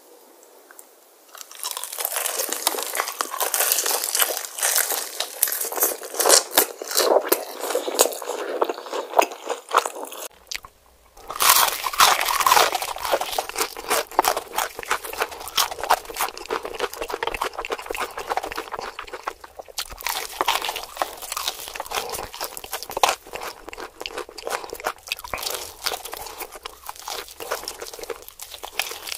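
Close-miked eating of crispy fried chicken: rapid crackling crunches of the breaded crust as it is bitten and chewed. The crunching starts about a second and a half in and breaks off briefly about ten seconds in.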